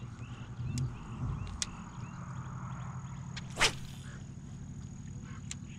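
A fishing rod whipped through the air in a cast: one sharp swish about three and a half seconds in, over a low rumble of wind on the microphone.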